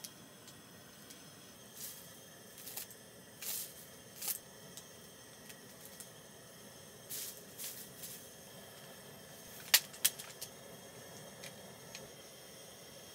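Light handling noises as fish-cake skewers and a plastic sauce pouch are arranged in a cast-iron pan: scattered short rustles, and two sharp clicks close together about ten seconds in, over a faint steady hiss.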